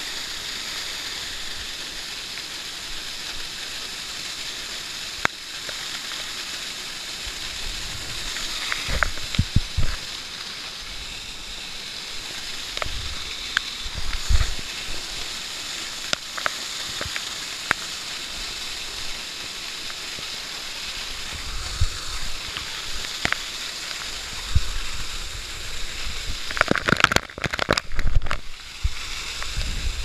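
Waterfall pouring down close to the camera: a steady hiss of falling water and spray. Irregular sharp taps and low thumps of water splash onto the camera, and they come thickest near the end.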